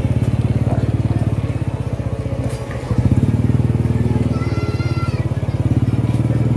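Small motorcycle engine running steadily at low speed, a rapid even putter that gets a little louder about three seconds in.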